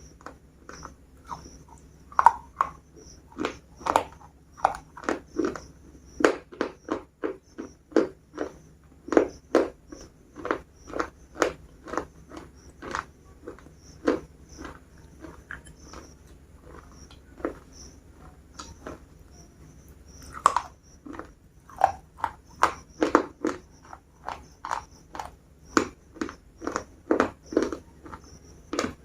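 Crunchy biscuits being bitten and chewed close to the microphone: a run of crisp crunches, about two a second, thinning out briefly a few times.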